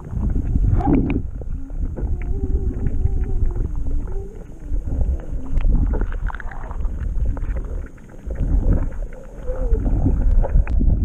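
Muffled underwater sound picked up by a camera submerged among a school of sardines: a heavy low rumble of water moving against the camera, with a faint wavering tone and scattered small clicks. The rumble dips briefly about eight seconds in.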